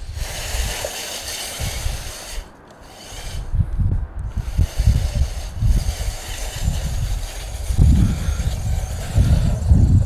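Brushless 1:16-scale RC truck driving over dirt and dry leaves, giving a rough hiss that drops away briefly about two and a half seconds in, over an uneven low rumble.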